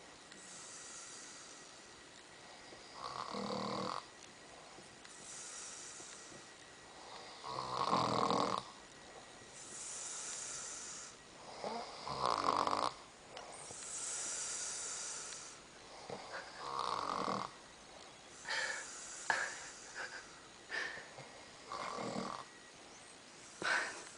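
A man snoring loudly in his sleep: a snore on each breath in, about every four to five seconds, each followed by a hissing breath out. Near the end the sounds come shorter and more uneven.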